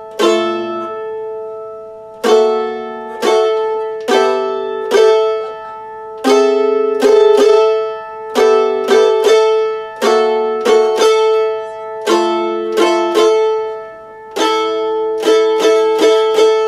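Mandolin played with a pick: a slow run of chords, each struck sharply and left to ring and fade before the next, with one high note ringing on through most of them.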